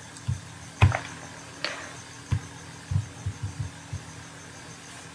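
Computer mouse clicks and small desk knocks, about nine soft, irregular clicks and low thumps over a faint steady electrical hum.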